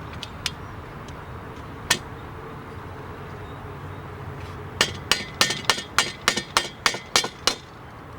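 Hammer lightly tapping the bottom window-frame piece onto a plastic corner piece of a greenhouse roof window: one knock, then a quick run of about a dozen taps, roughly four or five a second.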